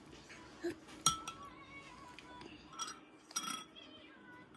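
Metal spoon clinking against a glass bowl as a toddler scoops soup: a few sharp clinks with a brief glassy ring, the loudest about a second in and another pair near three and a half seconds.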